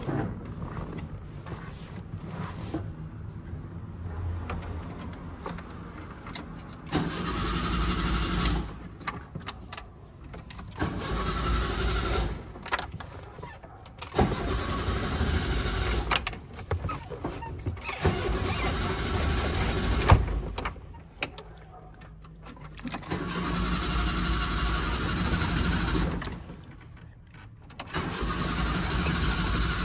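Fiat 147's starter cranking its four-cylinder engine in about six spells, from about a second to six seconds long, with short pauses between, without the engine catching. It is a hard-to-start old engine on a weakening battery.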